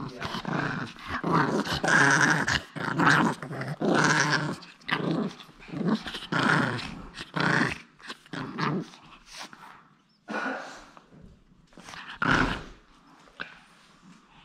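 Japanese Chin dog growling in a string of short, rough bursts, thinning out to a few scattered growls after about eight seconds.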